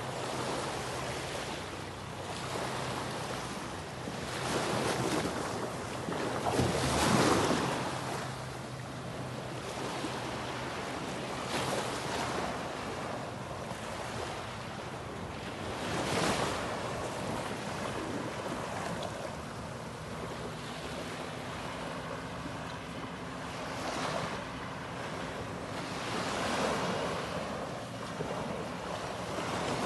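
Ocean surf washing up on a beach, the noise of the waves swelling and falling back every few seconds, loudest about seven seconds in, with wind buffeting the microphone.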